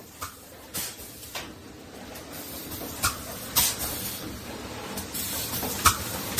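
Automatic bottle-blowing machine running: its pneumatic valves let out short, sharp hisses of compressed air, about seven times at uneven intervals, over a steady machine noise.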